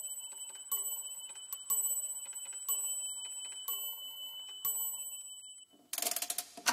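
Clock ticking about once a second with a thin ringing tone behind it. Near the end the ticking gives way to a fast rattle of clockwork, ending in a single sharp strike that rings out.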